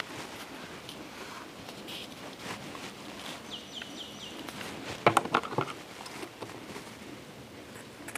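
Rustling and crinkling of adhesive tape being wound around a Great Dane puppy's cropped ear, with a cluster of sharp clicks about five seconds in. A bird chirps a quick run of about five notes shortly before.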